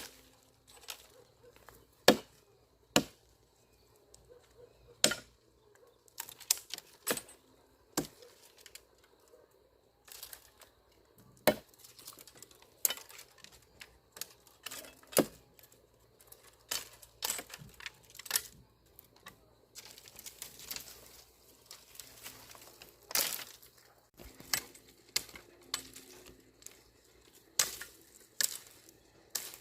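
Irregular sharp snaps and knocks, some single and some in quick clusters, with brief stretches of rustling in between.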